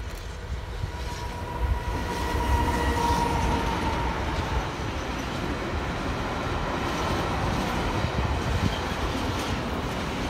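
Freight train passing close by, hauled by a BB 26000-class electric locomotive. A steady high tone sounds for the first few seconds as the locomotive goes by, then fades, leaving the steady rumble of the container and tank wagons rolling past on the rails.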